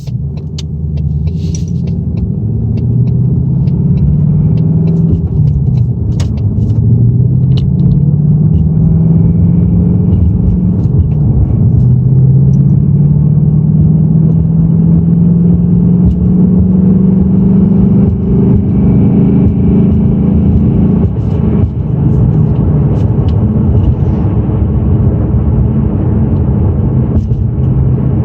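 2018 Mustang GT's 5.0-litre Coyote V8 running under way, its pitch climbing slowly as the car gathers speed, then dropping sharply about three quarters of the way through before holding steady. The engine carries the rattle that the owner takes for piston slap.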